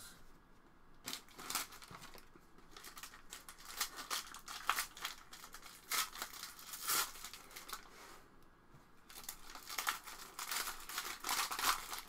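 Trading card pack wrappers crinkling and tearing as packs are opened by hand, with cards being handled. The crinkling comes in irregular clusters with short quiet gaps between.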